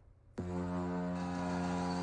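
Anaheim Ducks goal horn blasting: a low, steady horn tone that starts abruptly about half a second in and holds.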